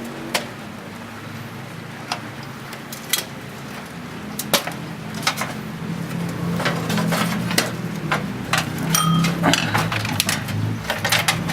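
Scattered sharp clicks and knocks of parts and screws being handled as a desktop computer system unit is taken apart. A low hum runs underneath.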